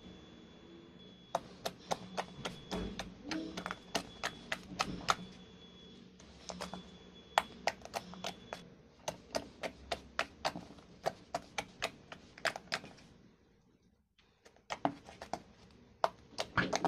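Slime being poked and squeezed, giving a rapid string of sharp clicks and pops, a few every second, with a brief break near the end.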